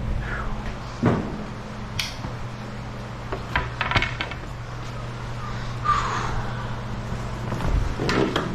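Scattered knocks and clattering at irregular moments over a steady low hum.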